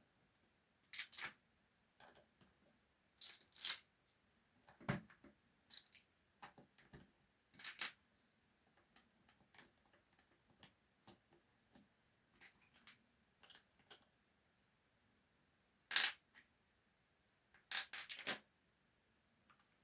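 Irregular light clicks and taps of small hard objects, with a sharper clatter about 16 seconds in and a quick cluster of taps shortly after.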